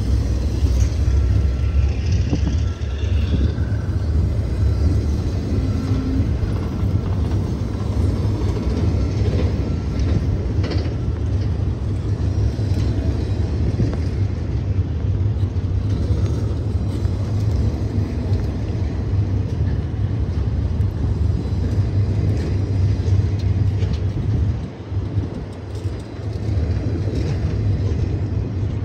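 Cars of a long welded-rail freight train rolling slowly past: a steady low rumble with a few faint squeals and clicks, dipping briefly near the end.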